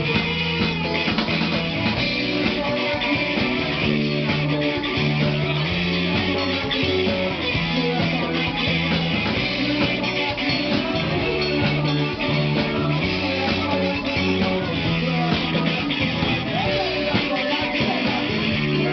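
Rock band playing live, with electric guitars over a driving drum kit and a bass line that moves in repeated steps.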